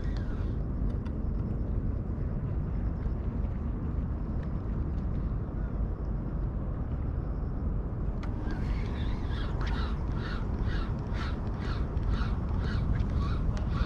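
Steady wind and water noise, then about eight seconds in crows start cawing in a rapid series of short calls that keeps going.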